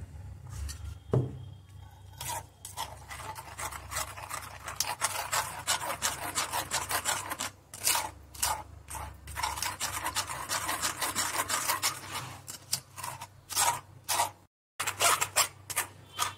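Thick ground melon-seed paste being rubbed and scraped through a metal wire-mesh strainer: rapid, irregular rasping strokes against the mesh, with a single knock about a second in.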